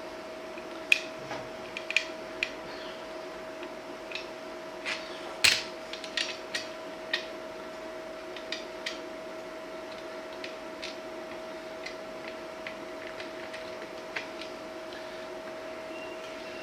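Scattered small metal clicks and taps of bolts and a bracket being handled and fitted by hand, busiest in the first half and sparser later, over a steady hum.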